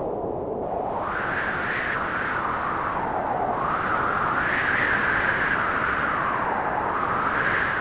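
Synthesized wind from an Omnisphere noise-oscillator patch with delay and reverb: a steady rush of filtered noise whose pitch slowly wanders up and down, swelling into a higher whistle several times, like gusts.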